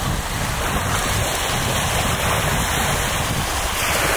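Steady rush of wind and water noise, with wind buffeting the microphone in low rumbles.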